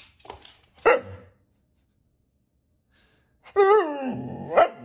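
Husky giving a long, wavering, drawn-out vocal "talking" howl that starts about three and a half seconds in. A short loud sound comes about a second in.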